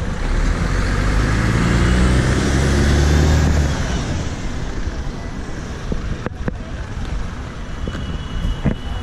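Articulated city bus's engine passing close by, swelling to its loudest about two to three seconds in and then fading into steady road-traffic noise.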